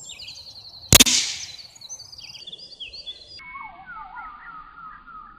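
A single .22 Short rifle shot from a Savage single-shot rifle about a second in, a sharp crack with a short tail, fired at a Kevlar helmet. Birds sing throughout.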